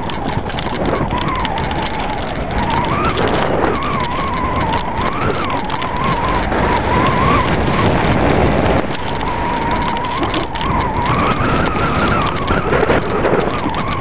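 Enduro bike riding down a rough mountain trail: continuous tyre and rattle noise over the ground, with many small clicks and a steady whine that wavers in pitch.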